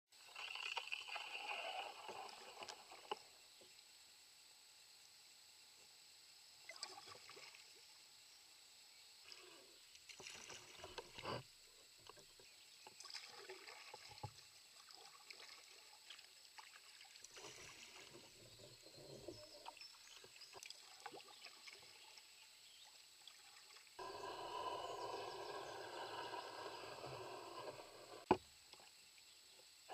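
Kayak paddling: paddle blades dipping into calm river water and dripping, in faint, uneven stretches with quiet gaps between them. A single sharp knock comes near the end.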